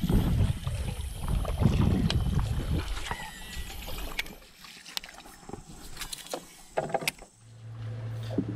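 Water sloshing and splashing around a small boat, then several sharp clicks and knocks of fishing gear being handled, with a steady low hum starting near the end.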